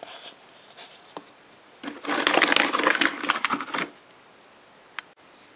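A dense crinkling rustle for about two seconds, starting about two seconds in, from handling while ingredients are being added to a glass mixing bowl. A single sharp click comes near the end.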